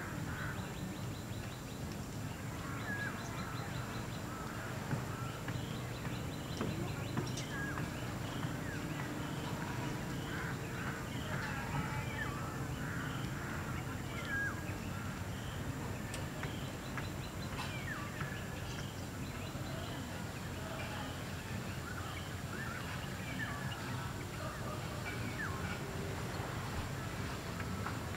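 Birds chirping and calling over a steady low rumble.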